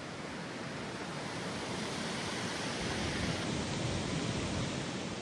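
Strong gusty wind, a steady rush that swells about three seconds in, with low rumble from wind buffeting the microphone.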